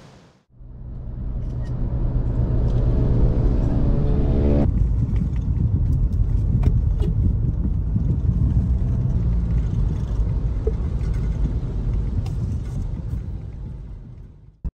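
Car driving on a wet road, heard from inside the cabin: a steady low rumble of engine and tyres, with an engine hum in the first few seconds and a few faint ticks later.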